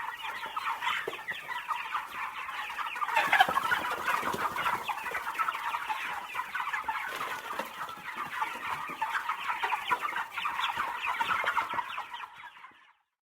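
A flock of farm chickens clucking and chirping together in a dense, continuous chatter of short calls, with one louder call about three seconds in. It fades out near the end.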